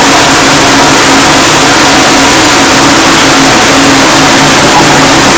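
High-pressure shower head spraying water: a loud, steady hiss with a low hum running through it.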